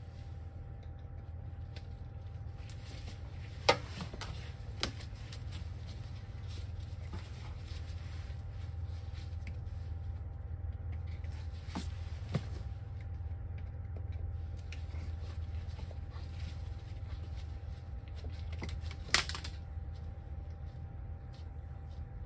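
A folding hex-key tool working the small Allen screw of a wire-retaining clip on a scooter's swing arm: light metal scraping and a few sharp clicks, the loudest about 4 and 19 seconds in, over a steady low hum.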